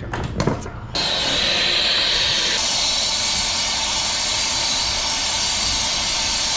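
A few short clicks, then compressed gas hissing steadily from a valve or hose on the walk-in cooler's copper refrigerant lines. The hiss starts about a second in and turns sharper and brighter about two and a half seconds in.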